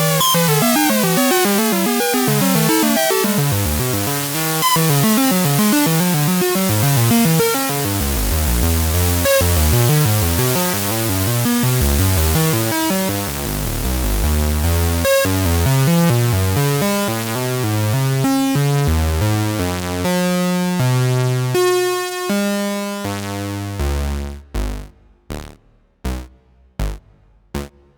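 Dreadbox Dysmetria synthesizer playing a fast run of sequenced notes with reverb. About two thirds of the way in it slows to longer held notes, then ends with a few short, separate notes that die away.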